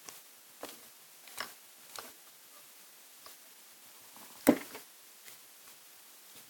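Paper and tape being handled over a wooden desk: a few faint rustles and taps, then one much louder sharp snap about four and a half seconds in as a strip of clear tape is pulled from a desktop dispenser and torn off on its cutter.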